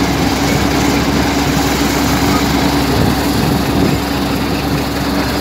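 Tractor-driven groundnut thresher running steadily while it threshes groundnut plants: a constant loud mechanical drone with a steady hum.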